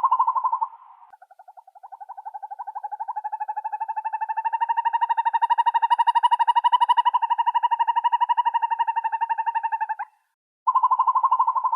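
An owl giving a rapid, even-pitched trill: a short loud burst cut off in the first second, then one long trill of about nine seconds that swells and fades, and another burst starting near the end.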